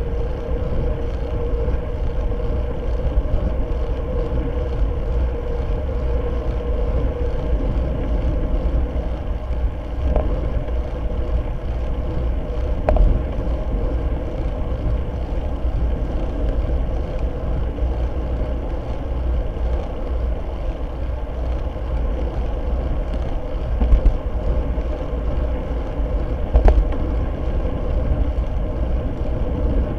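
Wind rush and road rumble of a road bike riding at speed, picked up by a camera mounted on the bike: a steady noise with a heavy low rumble and a steady hum, broken by a few sharp knocks, two of them near the end.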